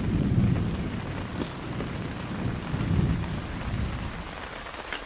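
Heavy rain falling steadily as thunder rumbles deeply, swelling about half a second in and again around three seconds, then dying away toward the end.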